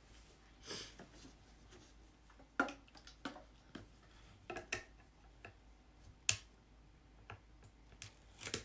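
Scattered small clicks and knocks of supplies being handled on a tabletop, with a soft rustle about a second in and a few sharper knocks later.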